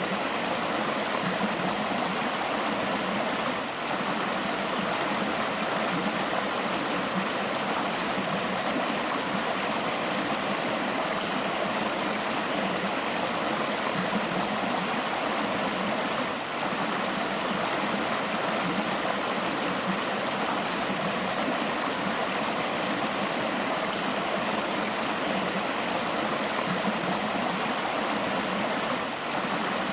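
A river flowing in a steady, unbroken stream, its running water babbling and rushing.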